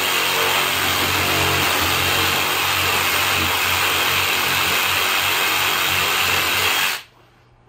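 DeWalt cordless compact reciprocating saw running steadily as it cuts through pallet wood. It stops suddenly about seven seconds in.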